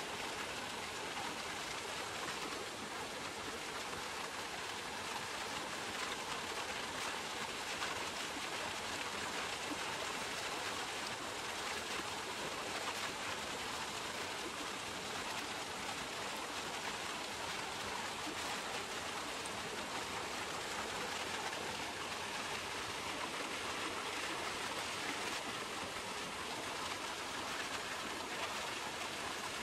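Steady rush of a shallow mountain stream running and splashing over rocks.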